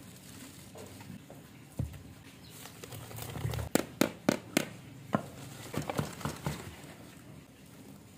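A blade scraped around the inside of a plastic flower pot and the pot knocked to loosen a plant's root ball. Soft rustling of soil comes first, then a quick run of sharp taps and scrapes about four seconds in, with a few more shortly after.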